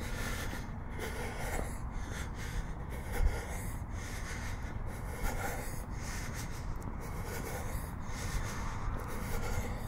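A person's breathing, close on a camera's built-in microphone while walking: noisy breaths in and out about once a second over a steady low rumble.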